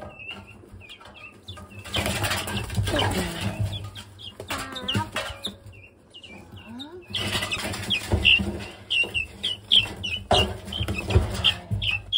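Guinea fowl keets, three weeks old, peeping in short, high chirps, several a second and thickest in the second half. Under them run long stretches of rustling and scuffling as the keets scramble through the wood-shaving bedding.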